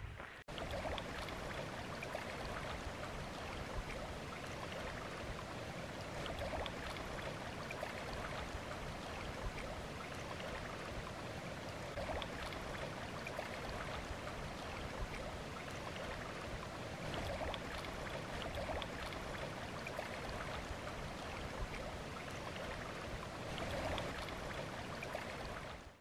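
Small waves lapping steadily on a stony lake shore, a constant watery wash with faint scattered splashes.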